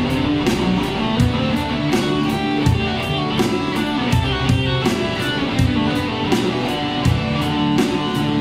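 Electric guitar playing single notes through a D Mixolydian scale shape over a backing track with a steady drum beat.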